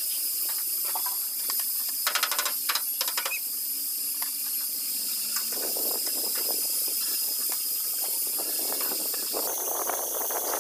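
A steady hiss, with a quick run of sharp metallic clicks about two seconds in and scattered rustling and knocks in the second half, from hand work on a bus's stripped front sheet-metal panels.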